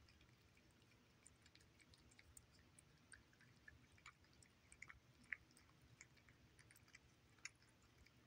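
Two cats eating wet salmon cuts in gravy from ceramic saucers: faint, irregular wet chewing clicks, with a couple of sharper clicks about five and seven and a half seconds in.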